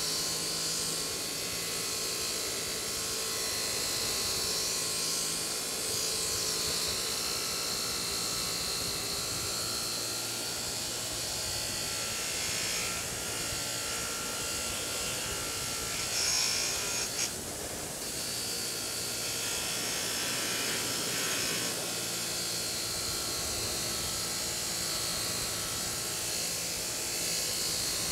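Bench grinder running with a wire wheel scrubbing rust off a steel Estwing hammer held against it: a steady motor hum under a hissing scrape. The scrape briefly changes about two-thirds of the way through.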